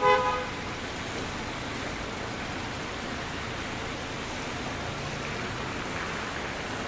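Steady rain hiss on a street, opening with a short car horn toot in the first half second, the loudest moment; the hiss swells slightly near the end.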